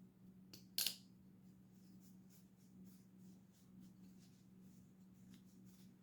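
Near silence with a faint steady hum, broken by one short, sharp click a little under a second in and a few faint ticks of small hard objects being handled.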